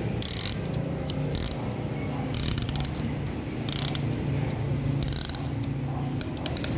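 Ratchet of a band-type piston ring compressor clicking as its key is turned to tighten the bands, squeezing the piston rings in before the piston goes into the bore. The clicks come in short bursts about once a second, with quicker single clicks near the end.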